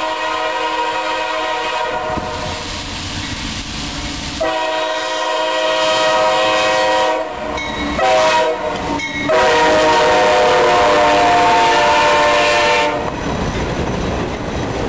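Multi-chime air horn on the CSX GE C40-9W locomotive leading a freight train, sounding the grade-crossing signal: a long blast, a second long blast, a short one and a final long one. Near the end the horn stops and the passing locomotives' engines and the wheels clicking over rail joints take over as a steady rumble.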